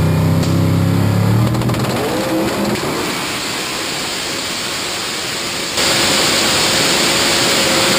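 In-car sound of a big-block Chevy V8 drag-racing engine at full throttle: the engine note climbs quickly over the first couple of seconds, then settles into a loud, steady run mixed with wind noise, growing louder again about six seconds in.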